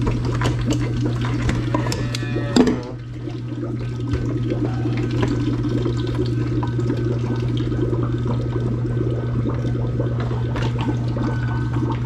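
Antifreeze draining from a loosened fitting on a water-heater loop and splashing into a plastic bucket, over a steady low hum. A sharp clank of tool on fitting comes about two and a half seconds in, with lighter clicks throughout.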